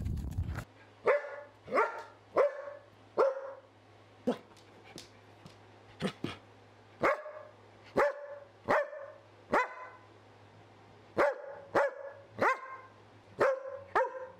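A dog barking repeatedly: sharp single barks, about one to two a second, in short runs with brief pauses.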